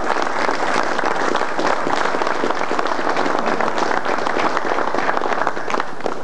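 Audience applauding: a roomful of people clapping steadily.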